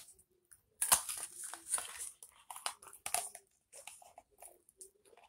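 Close-up mouth and paper-cup noises as gravy is tasted straight from a small paper cup. A sharp click comes about a second in, then a couple of seconds of crackly smacking and crinkling, then a few softer clicks.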